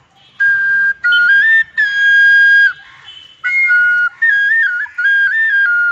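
Bansuri (Indian bamboo flute) playing a short melody in about six phrases, the notes stepping up and down, with one long held note about two seconds in.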